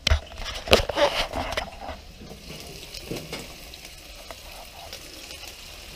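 Pieces of leerfish frying on a gas grill's flat griddle plate, a steady sizzle, with a few sharp knocks and bumps in the first second or two.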